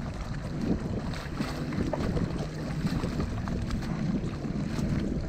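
Wind buffeting the microphone over a low, steady rumble on open water.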